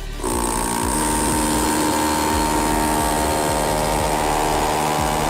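DeWalt DCH273 cordless SDS rotary hammer drilling, starting just after the beginning and running steadily at full speed.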